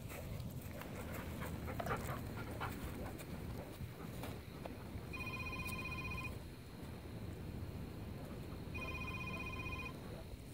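A phone ringing: two identical electronic rings, each about a second long, about three and a half seconds apart.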